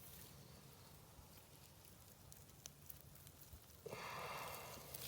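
Near silence: faint crackling and rustling, with a short, slightly louder hiss about four seconds in.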